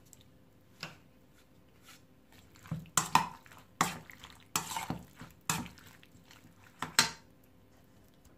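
A metal spoon clinking and scraping against a stainless steel bowl while wet diced tomatoes are stirred, in a scattering of irregular strokes that are busiest in the middle.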